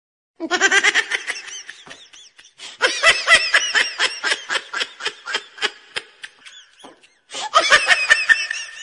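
A person laughing hard and high-pitched in quick repeated bursts of several a second, in three bouts with short breaks about two and seven seconds in.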